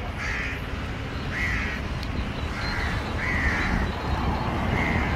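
A crow cawing repeatedly, five short calls about a second apart, over a steady low rumble.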